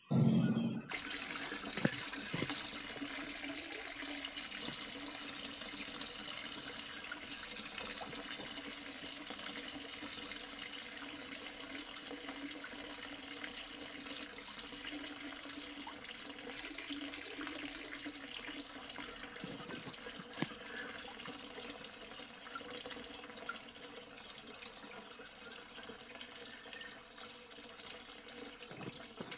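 Water spraying and splashing steadily from a miniature DC-motor pump's perforated-bottle shower onto toy tractors, with a faint steady hum beneath. A brief thump at the very start.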